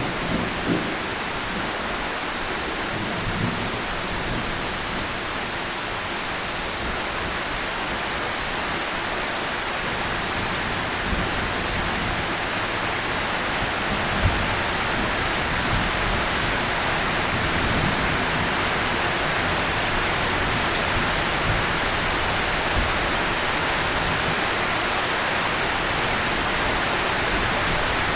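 Steady rain falling, an even hiss that grows slightly louder over time, with a few single louder taps, the most marked about halfway through.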